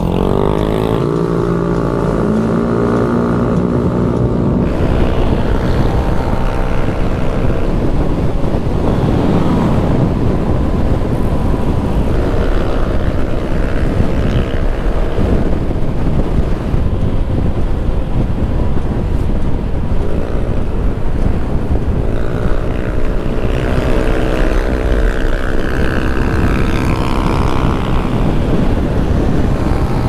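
Yamaha motorcycle engine running on the move, its pitch rising as it accelerates near the start and again about twenty seconds in, with wind rushing over the microphone.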